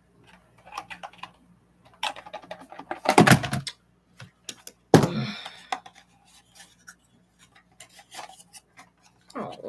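A small boxed item, an adjustable phone/tablet stand, is handled and worked out of its cardboard box: irregular clattering and rustling with sharp knocks. The loudest bursts come about three seconds in and again about five seconds in, the second a short scraping rasp.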